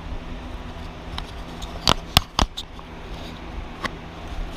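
A few sharp metallic clicks and knocks from an oil filter wrench being handled and fitted around the motorcycle's oil filter, three close together about two seconds in and one more near the end.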